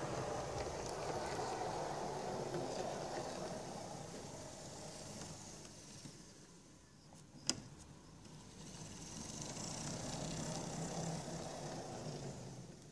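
Model Heljan Class 35 Hymek diesel locomotive running on the track: a steady motor hum and wheel rumble on the rails that fades in the middle, with one sharp click about seven and a half seconds in. It builds again, then cuts off near the end as the locomotive comes to a stop.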